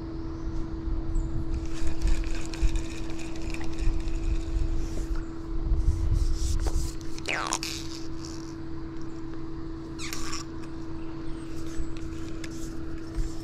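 A small electric motor hums steadily on one low tone, with gusts of wind rumbling on the microphone.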